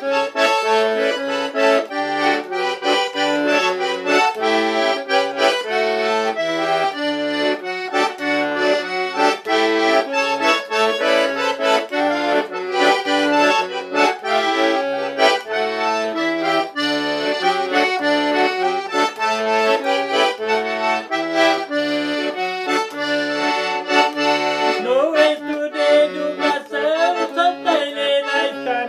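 Accordion playing a lively traditional tune: chords held over a steady, alternating bass. Near the end a sliding pitched sound joins in over the chords.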